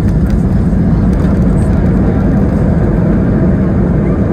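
Loud, steady rumble inside the cabin of an Airbus A321 rolling out on the runway just after touchdown: engine and wheel noise with no breaks.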